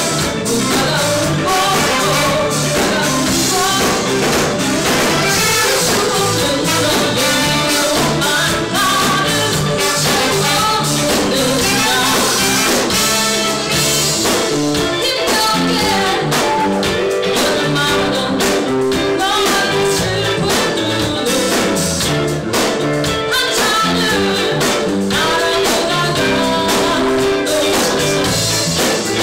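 Live band playing a song: a woman sings lead over electric guitar and drum kit.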